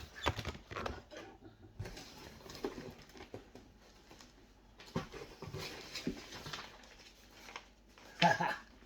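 Hands rummaging through an unboxed parcel and lifting items out: scattered rustles and light knocks of packaging, with a brief voice-like sound near the end.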